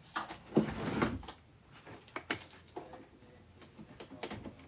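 Handling noises from plugging a 4-pin cable connector into the 3D printer: a few sharp plastic clicks and knocks with rustling in between.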